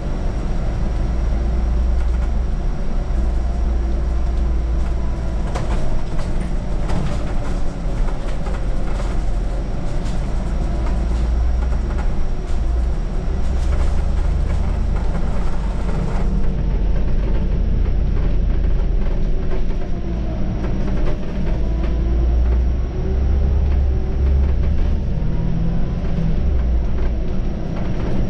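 Scania city bus on the move: a steady low rumble from the engine and road, with clicks and rattles and a faint whine that slowly rises and falls in pitch.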